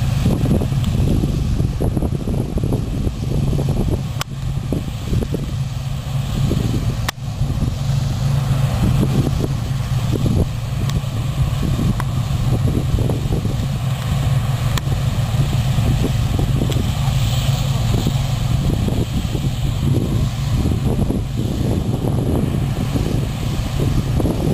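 John Deere tractor engine running steadily with a low, fast pulsing beat. Two brief clicks come about 4 and 7 seconds in.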